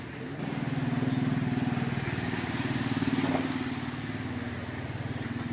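Small motorcycle engine running at low, steady revs. It comes in about half a second in, is loudest in the middle, and eases off a little near the end.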